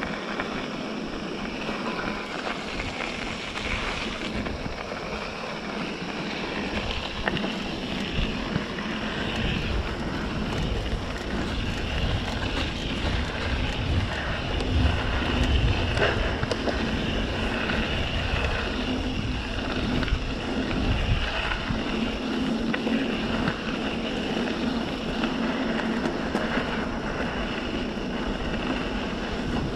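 Wind buffeting the microphone over the steady rolling noise of a mountain bike riding a dirt trail; it gets somewhat louder about halfway through.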